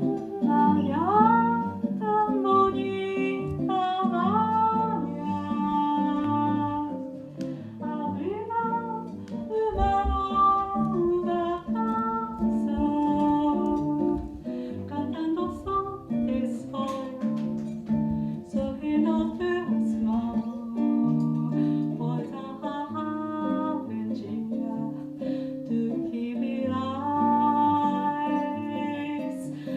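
Live bossa nova: a singer's voice over acoustic guitar, the guitar plucking a bass line and chords under the melody.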